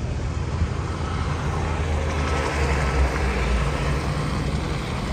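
Low, steady engine rumble with a hum in it. A haze of higher-pitched noise swells in the middle and then eases.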